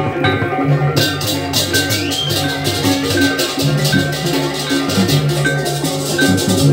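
Balinese gamelan music: metallophones playing repeating notes over low gong tones, with drums, and cymbals joining about a second in.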